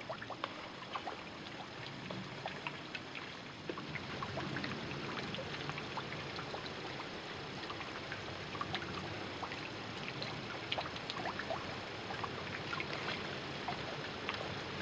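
A breeze blowing through the forest canopy, with dry autumn leaves rustling and many small ticks of leaves falling and landing all around.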